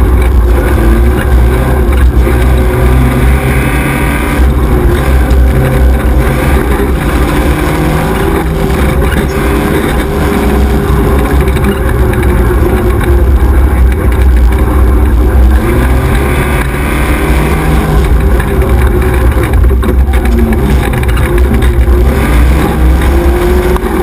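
XY 1100R 4x4 buggy's engine heard onboard while racing over a gravel track, its revs rising and falling. A heavy low rumble runs under it throughout.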